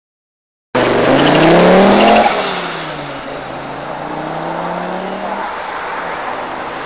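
Audi quattro rally car's turbocharged five-cylinder engine revving hard and rising in pitch. About two seconds in the sound drops to a quieter, more distant engine note that climbs slowly as the car accelerates.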